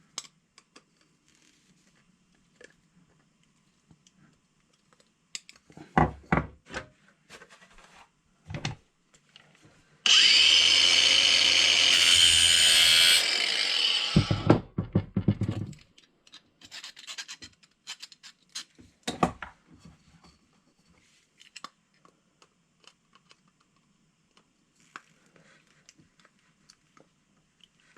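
Small clicks and scraping from handling small tools and parts. Midway a small power tool runs for about three and a half seconds: a whine that rises as it spins up, then holds steady.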